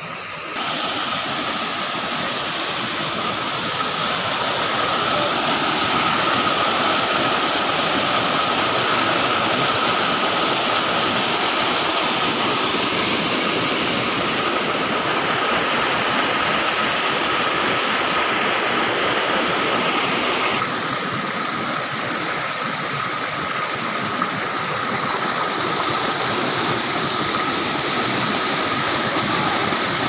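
Waterfall and rocky cascade water rushing in a steady, continuous wash. The sound changes suddenly about two-thirds of the way through, becoming slightly softer and duller as the view shifts.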